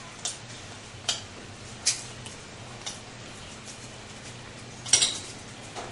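Metal spoon clinking against a cereal bowl while someone eats cereal with milk: five or so sharp clinks, roughly a second apart, the loudest near the end.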